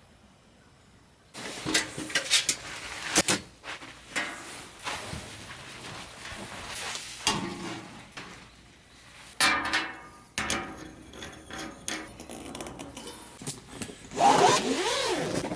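Irregular knocks, clicks and rubbing of objects being handled, starting suddenly after a second of quiet. Near the end comes a wavering squeal that glides up and down.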